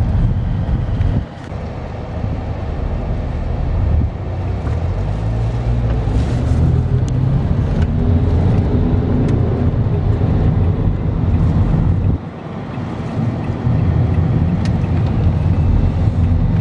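Car interior noise while driving: a steady low rumble of engine and tyres on the road, heard from inside the cabin. The level dips briefly about a second in and again about twelve seconds in.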